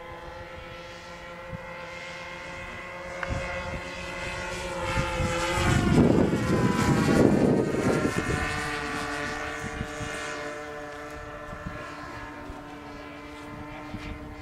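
A radio-controlled model plane's twin OS 46 nitro glow engines drone steadily in flight. About halfway through the drone swells louder with a rush of propeller noise as the plane passes close, its pitch dropping slightly, then eases back to a steady drone.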